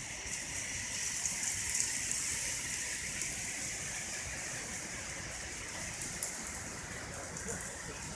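A steady, even hiss of water, with faint scattered ticks like drops.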